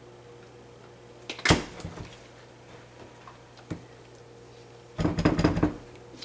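Utensils handled in a ceramic slow-cooker crock: a sharp knock about a second and a half in, a lighter tap later, then a short burst of rapid scraping and clattering near the end as the crock is scraped out. A steady low hum sits underneath.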